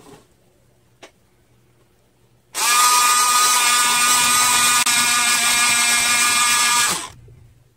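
Electric pencil sharpener running for about four and a half seconds while a pencil is ground to a point: a steady motor whine that starts and stops abruptly, after a couple of faint taps as the pencil is set in.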